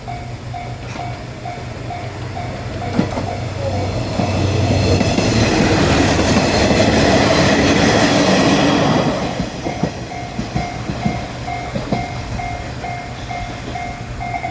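Japanese railroad-crossing warning bell ringing its steady "kan-kan" about twice a second while a diesel train, the Ai Yoshinogawa Torokko, passes. The engine drone and wheel clatter build to a loud rush that covers the bell for several seconds in the middle. The bell is heard again once the train has gone by.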